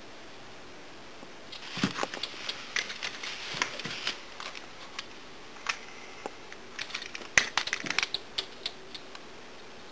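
A small dog's claws scratching and tapping on a glass door in quick, irregular flurries as it paws to be let in. The tapping starts about a second and a half in and dies away near the end.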